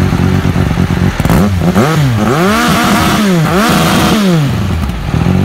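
Benelli TNT R 1131 cc inline-three superbike engine idling, heard through its carbon-fibre exhaust silencer, then revved up and down a few times from about a second in, each rev rising and falling in pitch, before dropping back to a steady idle near the end.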